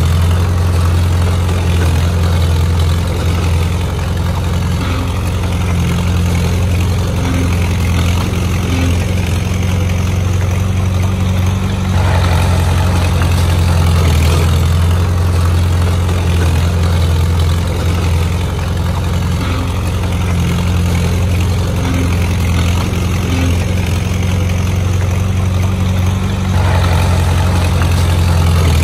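Engine of a heavy construction machine running steadily, a deep low hum with mechanical noise above it, shifting slightly in load a couple of times.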